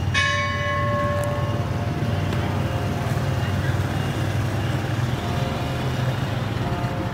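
A steady low hum like a running motor, with a clear ringing tone near the start that fades out over about a second and a half.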